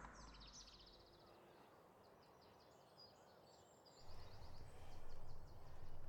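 Faint bird chirping in quick high trills, over a quiet outdoor background. A low rumble comes in about four seconds in and grows louder.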